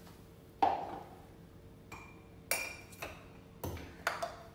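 Kitchen utensils clinking and knocking against dishes: four or five light knocks and clinks, the one a little after two seconds in leaving a brief ring.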